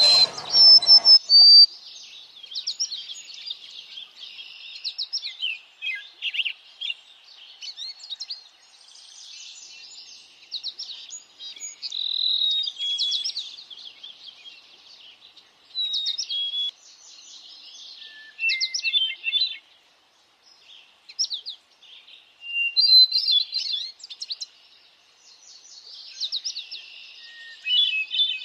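Morning chorus of several songbirds singing and calling at once: overlapping chirps, quick trills and rapid runs of high notes, coming and going in short phrases. There is a brief low rush of noise in the first second or so.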